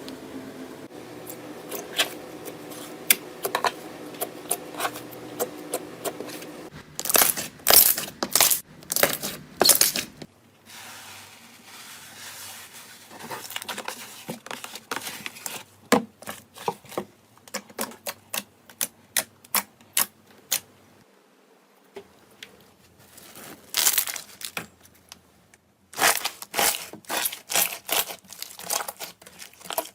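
Slime being pressed and squeezed by hand, crackling and popping in many sharp clicks. The pops come in dense rapid clusters separated by quieter stretches.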